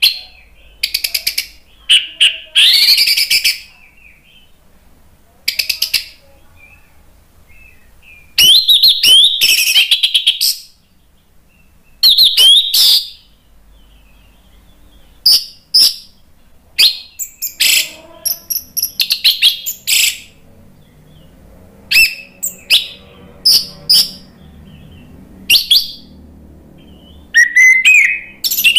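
Orange-headed thrush (anis merah) singing in full voice: loud phrases of rapid, varied whistles and sharp notes, each a second or two long, broken by short pauses.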